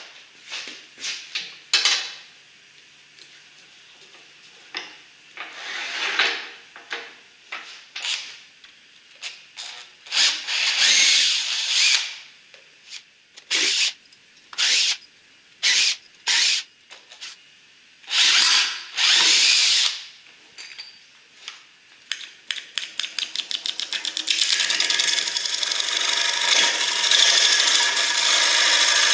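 Clicks and knocks of handling metal parts on a wood lathe, then a cordless drill driving screws in several short bursts of a second or two each. Near the end a run of quickening ticks gives way to a steady scraping hiss of a turning tool cutting a spinning wooden workpiece on the lathe.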